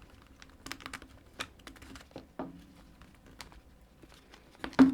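Irregular small clicks and taps of hands forcing a stiff rubber piece into a lock-pick case, with one louder knock near the end.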